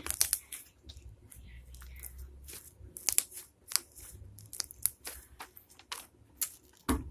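Slime with shaving cream mixed in being squeezed and stretched by hand, giving irregular sticky clicks and pops, with a louder knock near the end.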